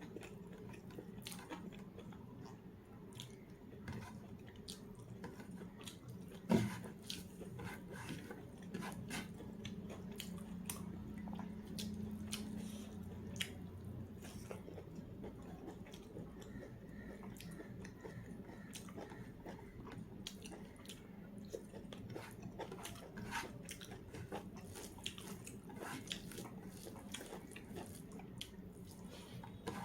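A person eating rice and curry: chewing, with many small wet mouth clicks and soft food noises, and one louder knock about six and a half seconds in.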